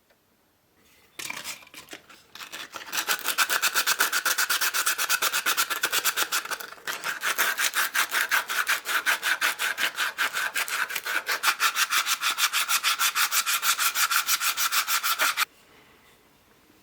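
Fast back-and-forth hand strokes of a tool rubbing or scraping, about four a second in a steady rhythm, stopping abruptly near the end; consistent with sanding, filing or sawing during a handsaw restoration.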